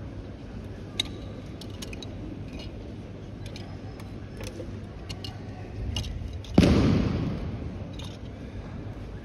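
A judoka thrown in a kata landing on the tatami: one loud thud about two-thirds of the way through, ringing on in the hall for about a second, over the steady low hum of the large room.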